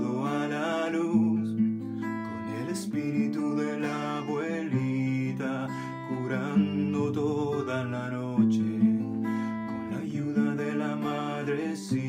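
Steel-string acoustic guitar strummed steadily, with a man singing a held, flowing melody over it.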